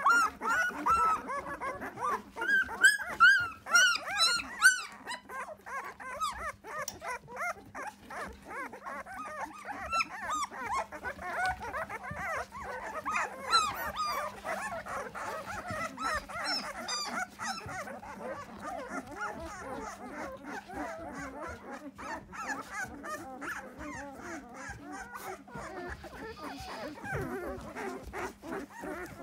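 A litter of newborn Belgian Malinois puppies crying and whining, many short rising-and-falling squeals overlapping. The cries are loudest and highest in the first five seconds, then settle into a softer, continuous chorus of squeaks and whimpers.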